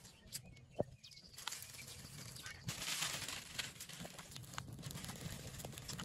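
Small fire of dry fibre tinder, dry leaves and wood scraps catching in a ground pit, crackling and hissing as the flames take hold. It grows louder from about a second and a half in. A single sharp click comes just before.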